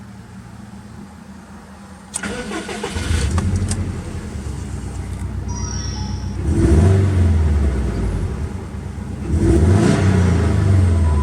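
Subaru Impreza GDB's turbocharged EJ20 flat-four, breathing through an aftermarket Fujitsubo exhaust, started about two seconds in, then running with a deep low rumble and blipped twice, at about six and a half and nine and a half seconds in.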